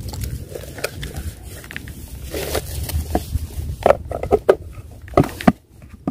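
Handling noise of a plastic bait bucket and fishing gear: irregular clicks, knocks and rustles, sharpest in a cluster from about four seconds in, over a low rumble of wind on the microphone.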